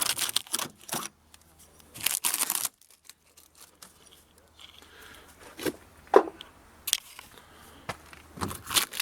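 Plastic wrapping being torn and crinkled off a car, in loud rustling bursts during the first few seconds, then quieter handling with a few sharp clicks and knocks.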